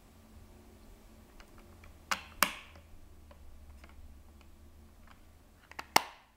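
Sharp plastic snaps from a small portable toothbrush sterilizer case as the toothbrush is fitted and the lid clipped shut: two clicks about two seconds in, two more near the end, the last one the loudest, with light handling ticks between.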